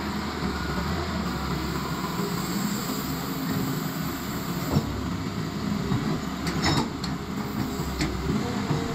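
Cat crawler excavator's diesel engine running steadily under load while it digs, with a few sharp knocks in the second half.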